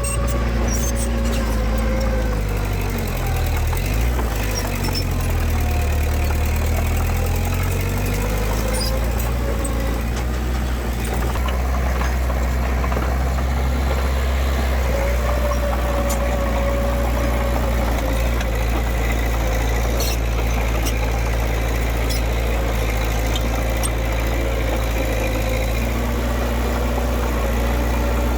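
Diesel engine of heavy earthmoving machinery running steadily. The engine speed rises and falls a few times in the first several seconds, then holds even.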